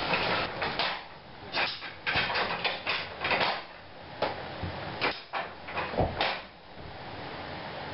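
Levers of a signal box lever frame being pulled over and put back, a run of about fifteen sharp mechanical clunks and clacks from the levers and their catches, coming in quick clusters.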